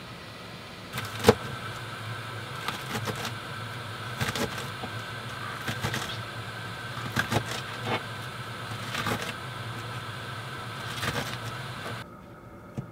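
Knife cutting and chopping on a plastic cutting board, short knocks every second or so, over a steady hum that stops near the end.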